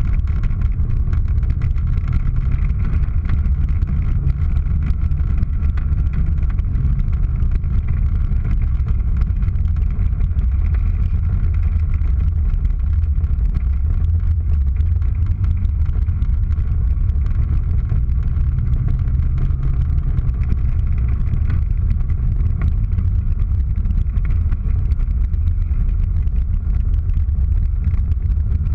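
Car engine running while driving, heard from inside the cabin as a steady heavy low rumble whose note rises and falls a little with the throttle.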